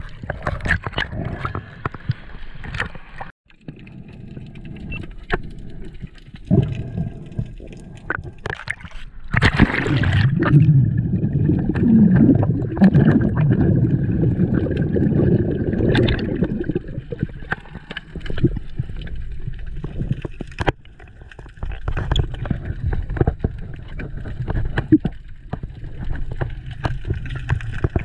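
Underwater water noise picked up through an action-camera housing: sloshing and gurgling with scattered clicks and knocks. It grows loudest for several seconds in the middle.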